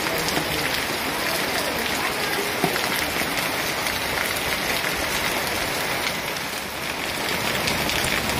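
Heavy rain pouring down steadily: an even hiss of rainfall with scattered clicks of single drops.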